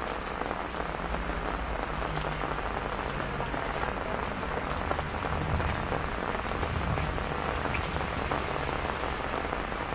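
Heavy typhoon rain falling steadily, a constant even wash of rain noise.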